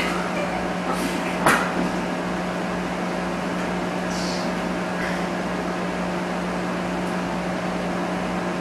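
Steady electrical or ventilation hum with a few constant tones, broken by a single sharp click about one and a half seconds in.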